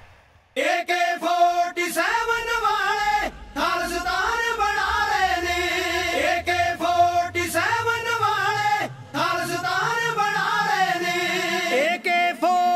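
A group of singers (a jatha) singing a Punjabi Sikh devotional song together, with long held, sliding notes; the singing comes in about half a second in after a brief quiet.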